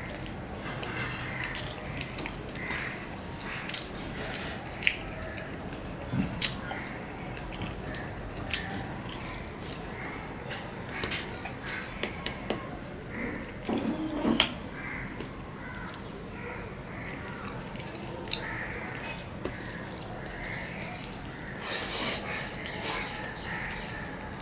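Close-miked eating: a person chewing mouthfuls of rice and curry with many small mouth clicks and smacks, and fingers mixing rice and curry on a steel plate. Louder moments come around the middle and near the end.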